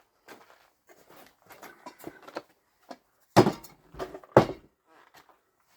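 Small clicks and scrapes of hard plastic parts being handled, then two sharp knocks about a second apart as the robot mower's wheel motor is worked free of its plastic housing.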